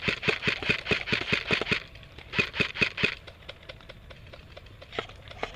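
An airsoft gun firing in rapid full-auto bursts, a fast rattle of shots. One burst stops about two seconds in, a shorter second burst follows, and a couple of single shots come near the end.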